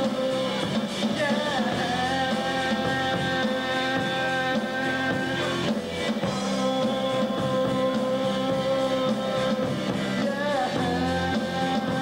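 Live rock band playing: electric guitar and drum kit, with held chords and sliding notes about a second in and again near the end.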